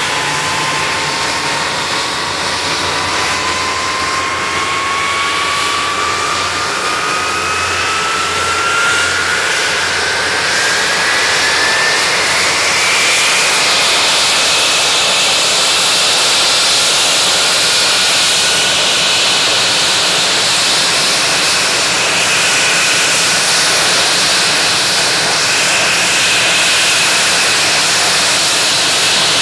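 Handley Page Victor K2's four Rolls-Royce Conway jet engines running up while the bomber stands still: a loud jet whine rises steadily in pitch over the first dozen seconds, then holds at high power, the run-up before a fast taxi run.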